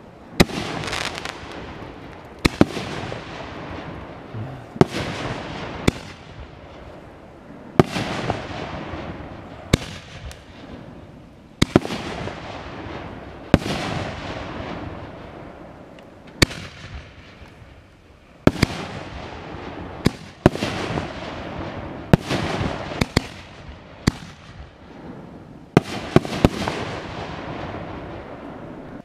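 Aerial firework shells bursting one after another, a sharp bang every second or two, each trailing off in a fading echo.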